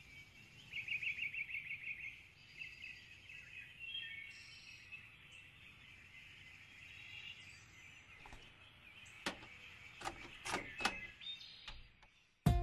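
Birds chirping, with a fast trill about a second in, over a faint steady hiss; a few sharp clicks come in the last few seconds, and the music starts right at the very end.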